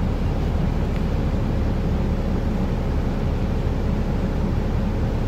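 Interior noise of a Scania Citywide 12 city bus: a steady low rumble from the engine and running gear, heard from a passenger seat in the cabin.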